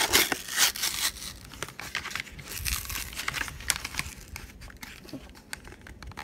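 Pokémon card packaging crinkling and tearing as it is worked open by hand: a dense flurry of sharp crackles in the first second or so, then softer, scattered crinkles.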